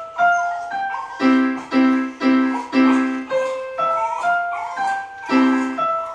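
Electronic keyboard played in a piano voice: a simple, gentle tune of single struck notes over repeated low chords, each note fading after it is struck.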